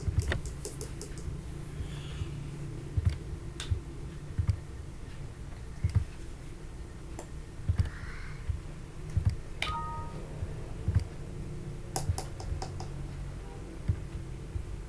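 Clicks and taps of a computer keyboard and mouse, scattered about once a second, with a quick run of key presses near the start, over a steady low hum. A brief two-note beep sounds about ten seconds in.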